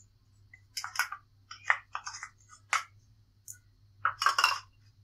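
A spatula scraping and tapping gram flour out of a small bowl into a mixing bowl of crushed dry noodles: a string of short scrapes and taps in separate clusters, the loudest near the end.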